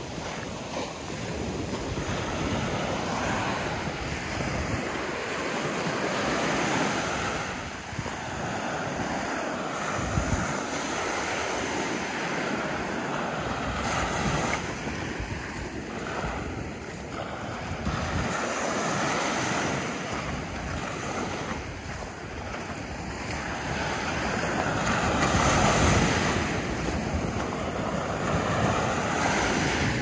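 Small ocean surf breaking and washing up a sandy beach, the sound swelling and easing as each wave comes in, with wind buffeting the microphone.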